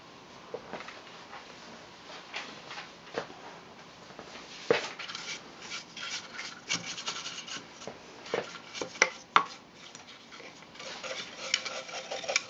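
Small craft brush scrubbing dust off the wooden case of an antique cuckoo clock: bristles rubbing and scratching on wood, with scattered sharp clicks and knocks as the case is handled. The strokes are sparse at first and come thick and fast from about five seconds in.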